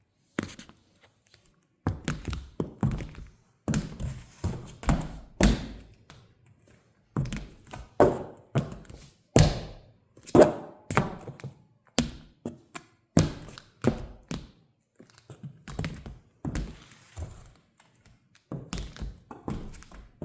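Heeled mules stepping and pressing down on a hard surface: an irregular run of thuds and taps, about one or two a second with short pauses, some strokes trailing into a brief squishy smear.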